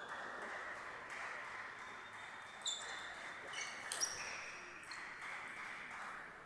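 Table tennis ball clicking off rackets and table in a quick rally: a handful of sharp, short clicks with a brief ring, the loudest about two and a half and four seconds in, over a steady hiss.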